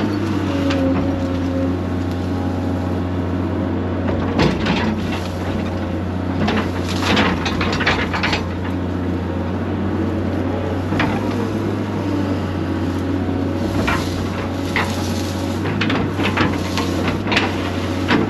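Excavator engine running steadily under load while the bucket digs out roots, with scattered cracking and scraping of roots and wood breaking, several times in clusters.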